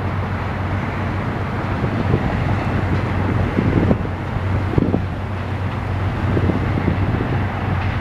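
Train noise: a steady rumble with a constant low hum and a few short knocks scattered through it.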